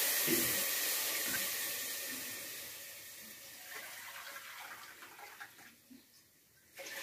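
Water poured from a small steel cup into a pot of hot oil and fried spices, hissing as it hits the oil and fading away over about three seconds. Another short pour of water near the end.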